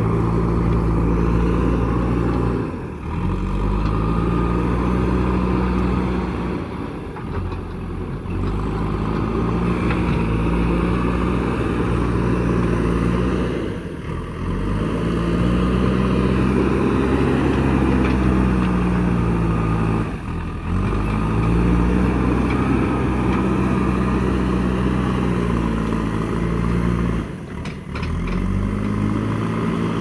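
A JCB backhoe loader's diesel engine working under load, its note swelling up and dropping back again and again as the front bucket pushes and lifts soil.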